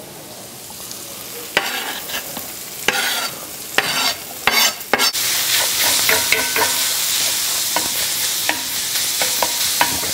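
Chopped mushrooms going into a hot oiled skillet with onions: a few knocks and scrapes of a utensil, then from about five seconds in a steady sizzle of frying, with light clicks of stirring.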